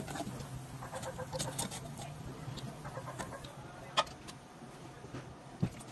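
Deep-frying in an aluminium pot of hot oil: light sizzling with scattered clicks of a metal spatula against the pot, one sharp click about four seconds in.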